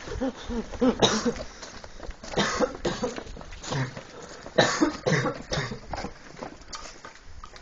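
A young man coughing in several short fits, with breathy pauses between them.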